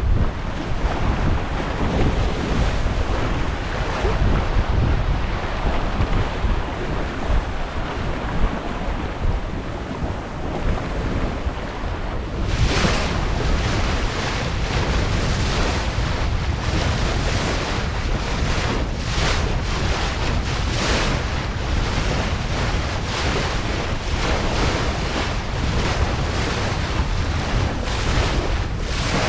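Water rushing and splashing along the hull of a Westsail 32 sailboat heeled over under sail, with heavy wind buffeting on the microphone. About twelve seconds in the sound turns brighter, with repeated hissing surges of spray as the bow cuts through the waves.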